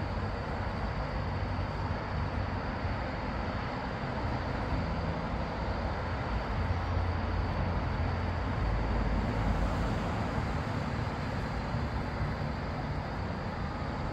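Steady road traffic rumble with tyre noise, growing louder about seven seconds in as vehicles pass, then easing slightly near the end.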